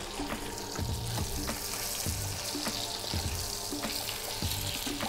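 Hake fillets frying in foaming butter and oil in a pan: a steady sizzle with many small crackles, as the fillets are turned over with a metal spatula.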